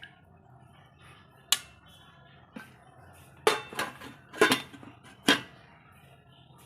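Serving utensils and dishes clinking: about six sharp knocks as food is served onto plates.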